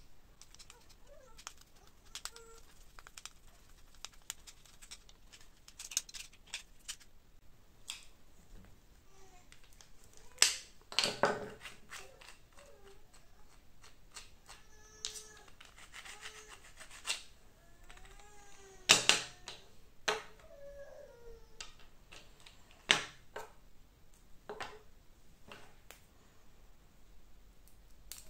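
Sharp clicks and knocks of 3D-printed plastic parts being handled and fitted together with a screwdriver on a wooden table, the loudest about ten, nineteen and twenty-three seconds in. A cat meows several times in the middle stretch.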